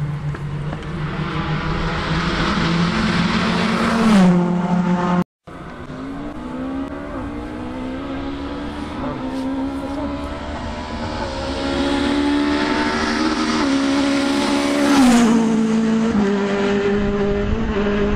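Two rally cars at full speed, one after the other. Each engine note climbs in steps through the gear changes as the car nears, then drops in pitch as it passes, the first about four seconds in and the second about fifteen seconds in. The sound cuts out abruptly for a moment between the two.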